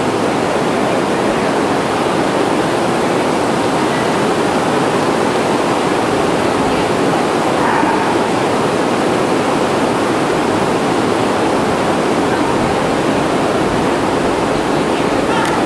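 Pouring rain on the roof of a covered arena, heard from beneath as a loud, steady, unbroken hiss.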